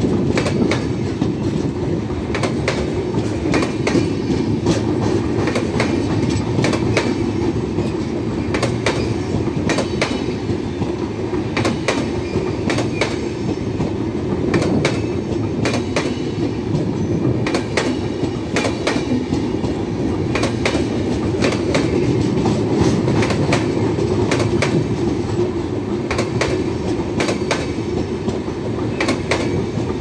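Express-train passenger coaches rolling past as the train arrives. A steady rumble of wheels and bogies runs throughout, with sharp, irregular clicks and clatter as the wheels cross rail joints.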